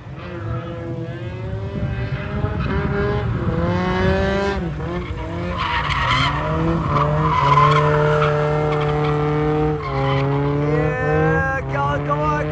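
Drift car engine held at high revs, its pitch rising, dipping and stepping with the throttle, with tyres squealing as the car slides sideways.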